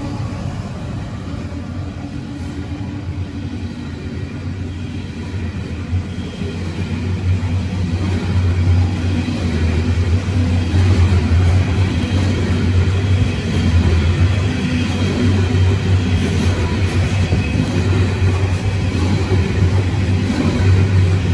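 Long freight train of AHAH coal hopper wagons rolling past close by: a deep, steady rumble of steel wheels on rail, growing louder about seven seconds in.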